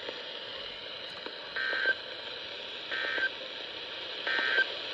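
Emergency Alert System end-of-message code on NOAA Weather Radio: three short, identical, chirpy digital data bursts (the SAME "NNNN" signal) about a second and a half apart, over steady radio hiss. It marks the end of the severe thunderstorm warning broadcast.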